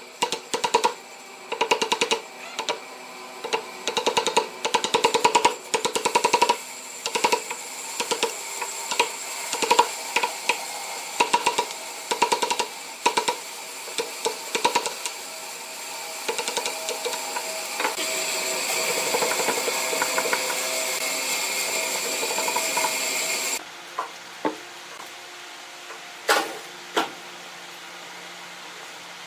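Wood chisel being struck again and again, one to two sharp ringing blows a second, as it chops waste out of a pine corner joint. Later a steady whirring noise runs for several seconds and cuts off suddenly, and a few single knocks follow near the end.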